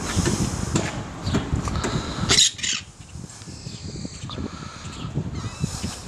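Caged green parrot calling, with one loud, short, high-pitched call about two and a half seconds in, after a few fainter calls over a low rumble.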